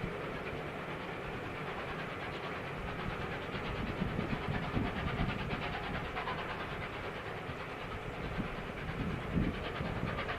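Steam-hauled passenger train running past with a steady rumble and hiss of wheels on the rails, and a fast clickety-clack through the middle.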